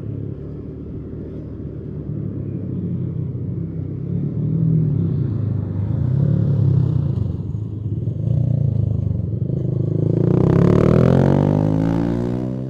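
Motorcycle engine running while riding along a street. Near the end it revs up, its pitch rising as it accelerates.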